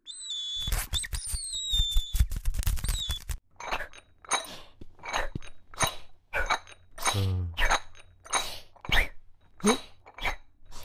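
Cartoon sound effects: crunchy chewing with a high whistling tone gliding over it for about three seconds, then a string of short squeaky sounds, roughly two a second, some sliding up or down in pitch.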